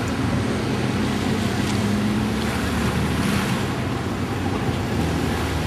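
Steady wind rushing over the microphone, with a low engine hum from road traffic beneath it.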